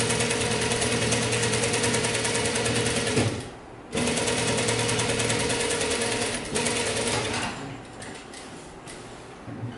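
Industrial single-needle lockstitch sewing machine stitching fabric with a rapid, even stitch rhythm. It stops briefly about three seconds in, runs again, then stops with about two seconds to go.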